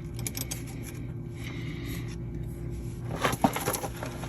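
Light metallic clinks and rattles of a wrench against the slack adjuster and brake parts, with a cluster of rattling about three seconds in, over a steady low hum.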